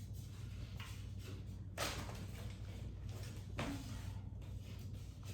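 Three brief scraping, rubbing sounds over a low steady hum, the loudest about two seconds in, as blind mounting hardware is handled and a screw is worked by hand that will not grip.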